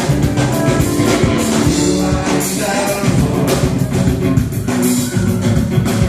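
Rock band playing: a drum kit keeps a steady beat under guitar, with some singing.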